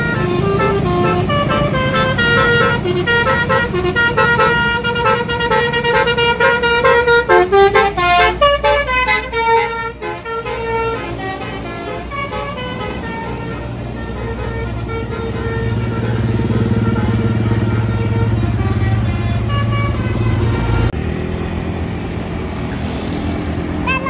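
A truck's basuri multi-tone musical horn plays a quick tune of stepped notes for about the first ten seconds, ending in a falling glide. After that the truck's engine runs low and steady, growing louder a few seconds later.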